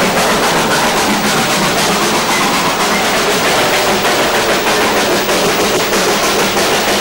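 A moving train's steady running noise on the track.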